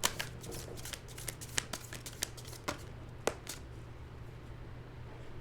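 Tarot cards being shuffled by hand: a run of crisp card flicks and slaps that stops about three and a half seconds in.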